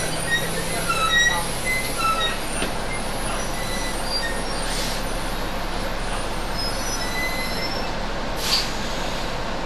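Interior running noise of a tri-axle double-decker bus on the move, heard near the axle: steady engine and road noise with a low hum, and small squeaks and rattles from the body. A short hiss comes near the end.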